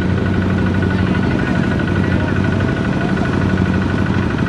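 Farm diesel engine idling steadily, with an even low hum.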